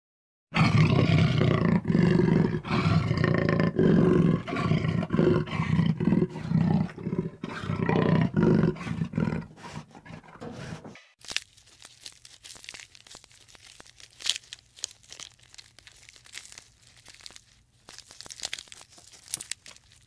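White tiger roaring and growling in a long run of loud, repeated calls that stop abruptly about eleven seconds in. After that come quiet crackling and tearing sounds of a giraffe stripping leaves from a branch.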